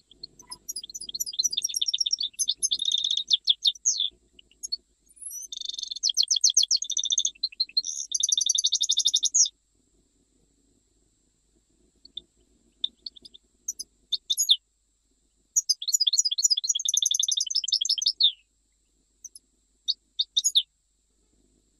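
European goldfinch singing its Jijel-style (Jijli) song in fast, trilled, twittering phrases a few seconds long. The phrases are broken by pauses and scattered single notes, with a silent stretch a little under halfway through.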